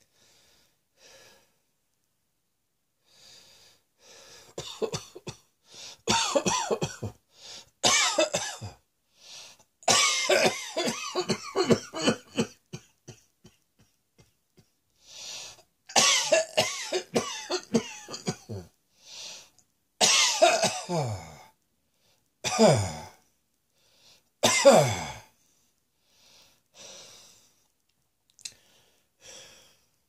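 A person coughing hard in repeated fits, several bouts trailing off in a falling, voiced cough. It dies down to faint, quiet sounds near the end.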